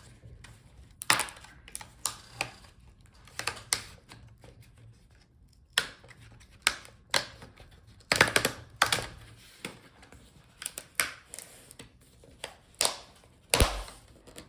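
Irregular sharp clicks and taps of hard plastic and small tools as the laptop's screen assembly is handled and the bezel is worked at, some coming in quick clusters.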